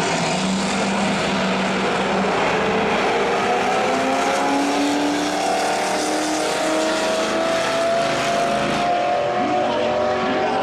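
Drag-racing engines of a Chevy C10 pickup and a second car at full throttle from the launch, pitch climbing in steps through the gear changes. The loud engine noise eases a little near the end.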